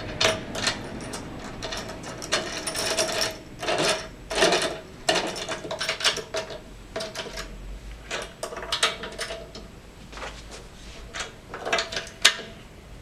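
Metal assembly key turning a nut and washer down onto a bolt by hand: a run of irregular metallic clicks and scrapes.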